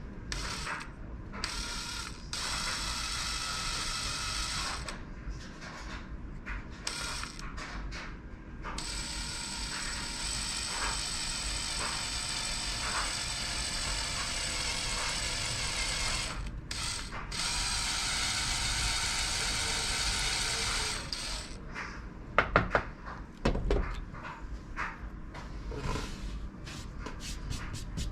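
A drill boring the tip hole into the end of a diamond painting pen body. It runs in several stretches with short stops in between, and a few sharp knocks come near the end.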